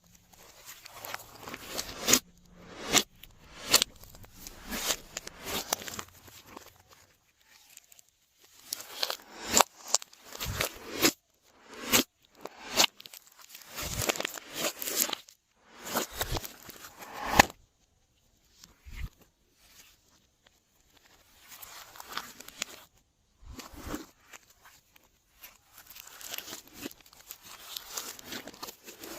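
Glossy slime being squished, stretched and folded by hand: sticky crackling, clicks and sharp little snaps in irregular bursts, with a few short pauses.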